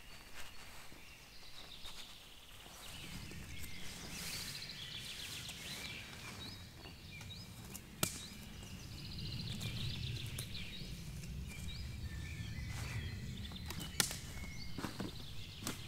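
Woodland birds singing: repeated short chirps, trills and little rising notes. Underneath there is a low rumble from a few seconds in, and two sharp clicks sound, one about halfway through and one near the end.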